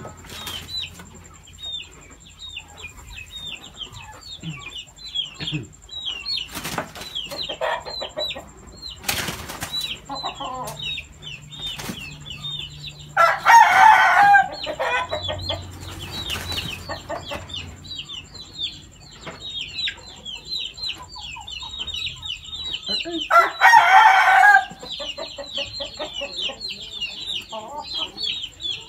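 Chickens in a coop: quick high chirping runs throughout, broken by a few short flaps of wings. Two loud chicken calls of about a second each come roughly 13 and 24 seconds in.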